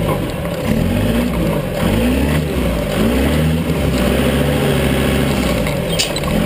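Engine of a modified 4x4 trial vehicle revving up and down over and over as it crawls through the section, its pitch rising and falling about once a second. A single sharp click about six seconds in.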